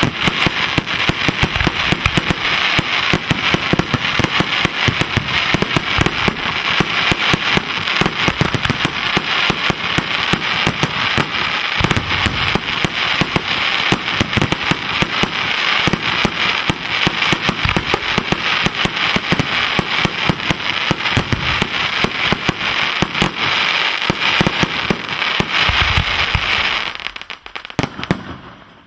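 Display finale of professional firework cakes and aerial shells: a dense, rapid barrage of bangs over continuous crackling. It dies away abruptly a second or two before the end.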